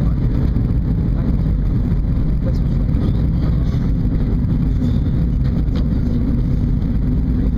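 Steady low rumble of airflow and engines heard inside the passenger cabin of an Airbus A320 during its descent.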